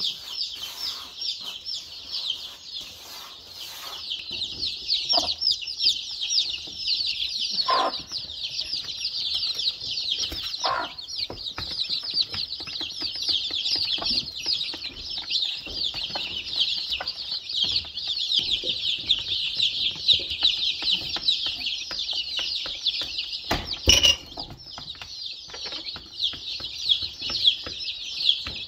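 A brood of young chicks peeping nonstop, a dense high chorus of short falling chirps, with a mother hen giving a few lower clucks in the first half. A single sharp knock comes a little past three-quarters of the way through.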